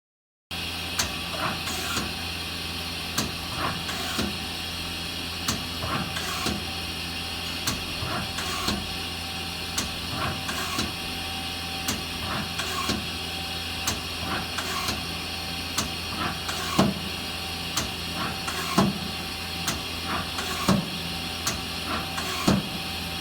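Yamazaki Mazak Quick Turn Nexus 250 CNC lathe running, a steady mechanical hum with a constant whine. Over it come short, sharp clicks and knocks about once or twice a second.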